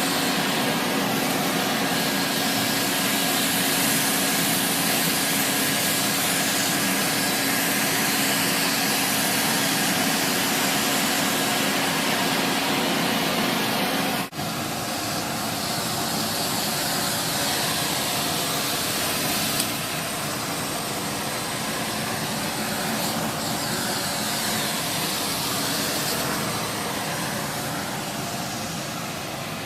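Sterilaire (relabeled 1950s Eureka Roto-Matic) canister vacuum with its Lamb electric motor running, air rushing through it as the loudest part, over a steady hum. About halfway through there is a brief dropout, after which the hum is gone and the rushing air goes on.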